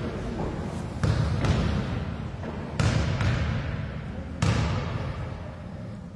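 Basketball bounced on a hardwood gym floor: a shooter's dribbles at the free-throw line. There are about four sharp bounces, two close together about a second in and the last about four and a half seconds in, each echoing in the gym.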